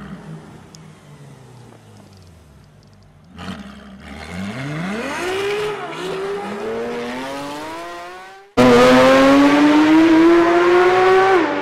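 LaFerrari V12 supercar engine revving up as the car accelerates away, its note climbing for several seconds and then fading. Near the end it cuts abruptly to a much louder engine at high revs, its pitch climbing steadily and then dropping suddenly.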